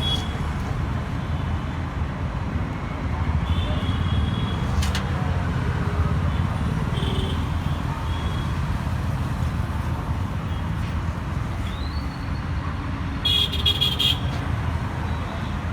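Road traffic with a steady low rumble and a few faint short high tones, and a vehicle horn sounding briefly and loudly near the end.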